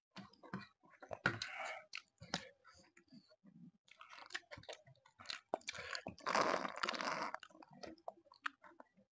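Close-miked chewing and biting of chow mein and spicy cucumber, with many short sharp clicks and crunches. A longer, louder stretch of eating noise comes about six seconds in.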